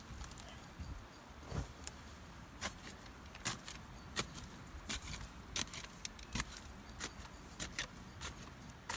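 Light, sharp knocks and clicks at irregular intervals, about one a second, over a low steady rumble.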